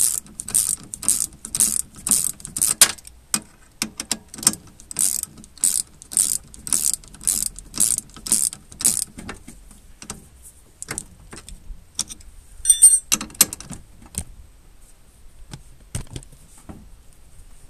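Socket ratchet wrench with a 17 mm socket clicking through repeated back-strokes, about two a second, as it runs down the nut of a mobility scooter's track rod end (steering ball joint). After about nine seconds the strokes thin out to scattered clicks as the nut comes tight, with a brief metallic ring about thirteen seconds in.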